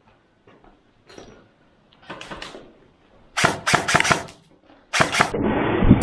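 Airsoft guns firing single sharp cracks in short clusters of shots, a few tenths of a second apart. Near the end a steady rushing noise takes over.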